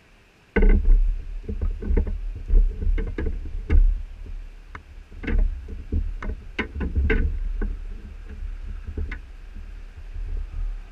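Handling noise on an action camera: a run of knocks, bumps and scrapes against the housing over a low rumble, starting abruptly about half a second in, as the camera is touched and moved.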